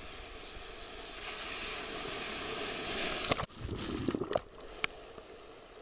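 Sea waves washing and hissing around a camera held at the water surface in the surf. About three and a half seconds in, the hiss cuts off abruptly and gives way to low, muffled gurgling and sloshing as the microphone goes under the water. A sharp click comes near five seconds, followed by a quieter steady wash.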